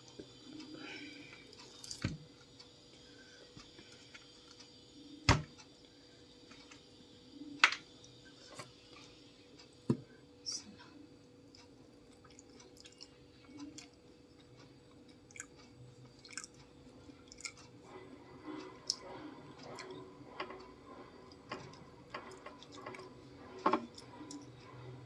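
Soft, wet chewing with scattered sharp clicks and taps. The loudest clicks come a few seconds apart in the first ten seconds, over a faint steady hum.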